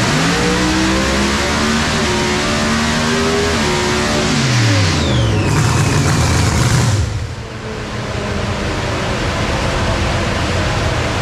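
Supercharged drag-race engine making a full-throttle pull on a hub dyno, its pitch climbing for about four seconds. The revs then fall away with a falling whine, and the engine shuts off about seven seconds in, leaving a steady rushing noise.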